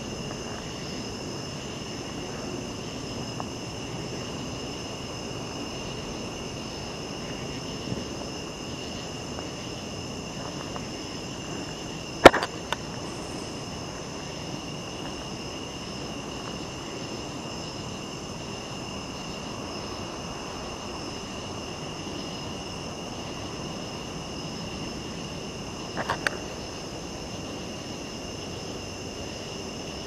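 Steady chorus of crickets and other night insects, several high even trills, over a low rustling noise. A sharp click comes before the middle, and a fainter one near the end.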